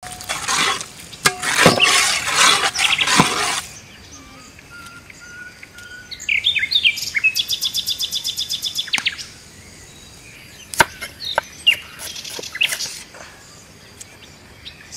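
Loud rushing, crackling noise for the first few seconds, then birds calling: a fast trill of repeated high notes and several separate sharp chirps.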